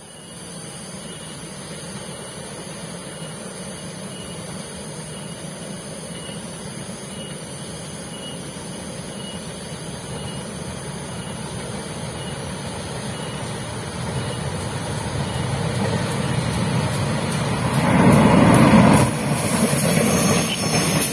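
KAI CC 201 diesel-electric locomotive and its passenger train approaching round a curve, growing steadily louder. It is loudest near the end as it passes close by.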